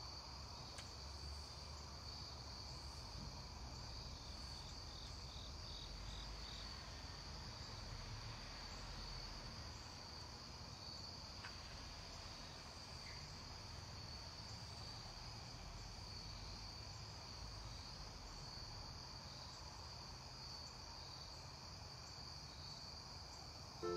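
Crickets chirring outdoors at dusk: a faint, steady high trill, with a soft low rumble beneath.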